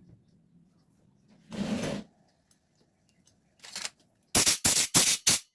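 Workshop handling noises: a brief rush of noise about a second and a half in, then near the end a quick run of about six loud, sharp bursts in just over a second.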